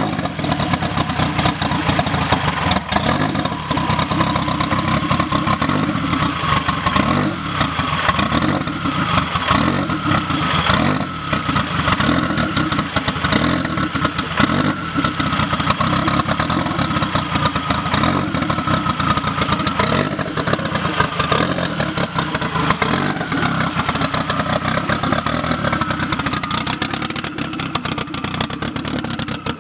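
Turbocharged Honda K-series four-cylinder engine swapped into a Toyota MR2, running on its first start-up. It runs loud and steady with small rises and falls in engine speed.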